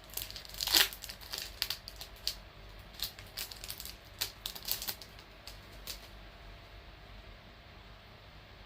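A trading-card pack wrapper being torn open and the cards handled: a run of sharp crinkles and clicks through the first six seconds or so, the loudest just under a second in, then only a faint steady hum.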